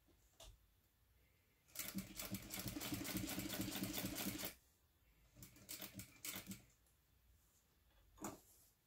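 Sewing machine top-stitching through fabric and vinyl: a steady run of stitches lasting about three seconds, then several short bursts of a few stitches each as the seam is inched toward a corner. A single sharp knock near the end.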